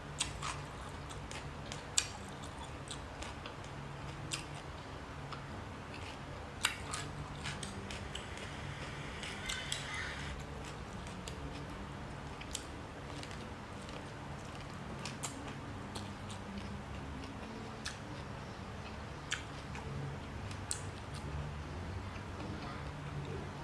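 A person eating close to the microphone: chewing, with scattered sharp clicks from utensils or food over a steady low hum.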